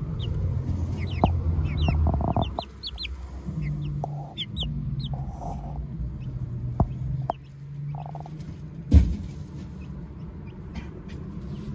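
Four-week-old chicks peeping, many short high cheeps coming thick at first and then more sparsely. Underneath is a low rumble, with a few sharp taps, the loudest about nine seconds in.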